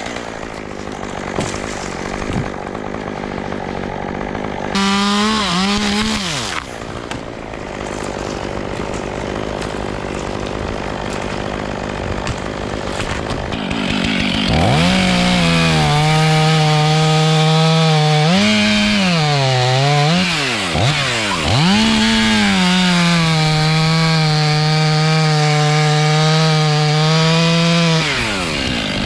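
Two-stroke chainsaw revving in a short burst. About halfway through it runs at high revs for a long stretch, its pitch dropping and recovering a few times before it steadies, then cuts off near the end.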